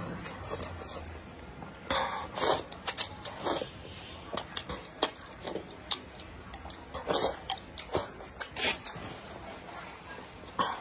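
Close-miked eating sounds: slurping and chewing spicy noodle soup, with short sharp clicks of wooden chopsticks against the clay pot scattered throughout.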